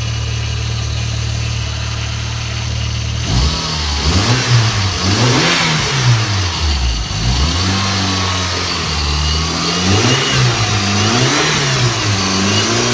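Mitsubishi Lancer Evolution V engine, a turbocharged four-cylinder, idles steadily. About three seconds in it starts being revved in a series of quick blips, the pitch rising and falling again and again.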